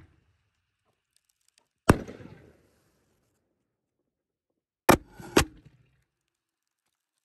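Camo Blast canister shells from Raccoon Fireworks bursting in the air: one sharp bang about two seconds in, then two more bangs half a second apart about five seconds in, each with a short fading tail.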